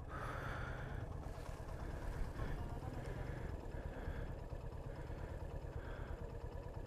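Suzuki GR150's single-cylinder engine running steadily while riding, heard as a low, even rumble mixed with wind noise on the microphone.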